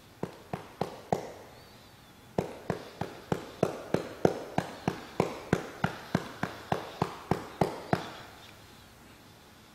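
A hand patting a baby's back to bring up a burp: four quick pats, a short pause, then a steady run of about twenty pats at roughly three a second.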